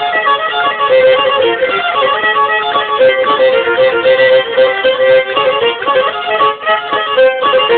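Pontic lyra (kemenche) bowed in a lively folk tune of quick running notes over a steady drone-like note.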